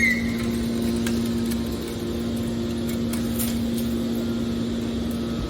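Scrap metal baling machine running with a steady, even hum.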